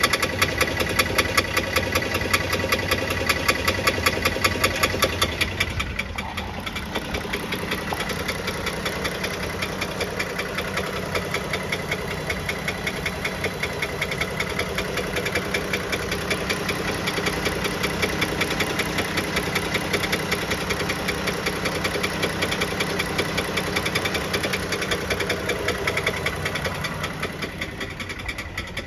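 Dodge Journey's 3.6-litre Pentastar V6 idling with a fast, regular knock. The knock becomes a little quieter about six seconds in. The knock is more than likely a worn piston wrist pin, according to several second opinions.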